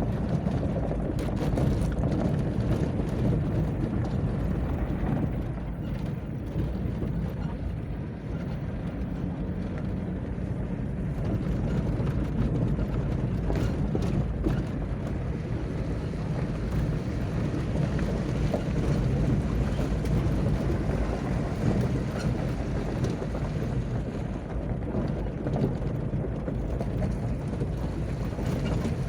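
Car moving along a street: a steady low rumble of engine and road noise, with a few faint knocks.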